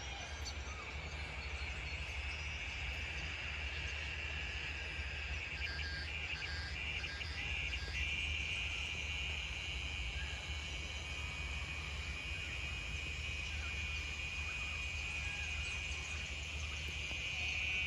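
Evening insect chorus: a steady high-pitched chirring that runs on without a break, with some brief pulsed calls about five to eight seconds in. A steady low rumble runs underneath.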